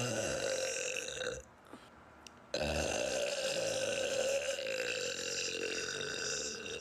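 A woman burping twice: a short burp, then, after a pause of about a second, a long, drawn-out burp lasting about four seconds.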